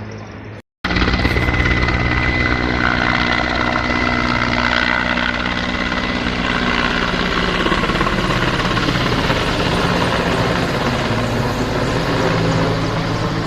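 Mi-17V-5 helicopter flying close by: loud, steady rotor beat with a steady turbine whine above it. The sound cuts out for a moment less than a second in, then comes back at full level.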